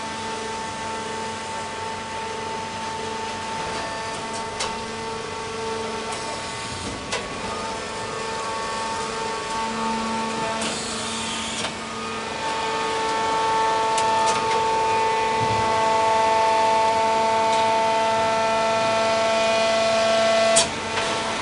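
Baler machinery running, a steady mechanical whine of several tones that shift now and then, with a few sharp clicks.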